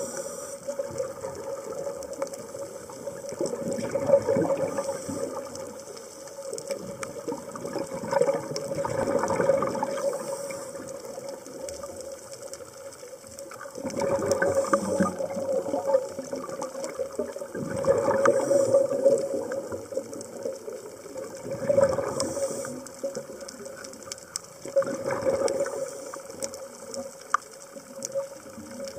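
Scuba diver breathing through a regulator underwater: a bubbly, crackling exhalation rises about every four seconds, with a steady hum underneath.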